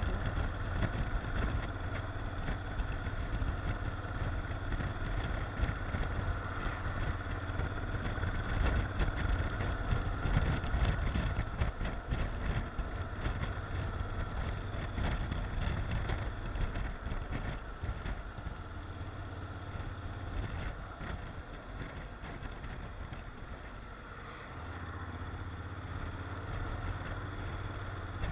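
Wind buffeting the microphone of a motorcycle under way, over the low steady hum of a Honda NC750X's engine and road noise. It turns quieter for a few seconds past the middle, then picks up slightly near the end.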